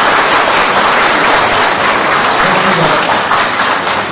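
Audience applauding, a steady, dense clapping that follows the end of a speech.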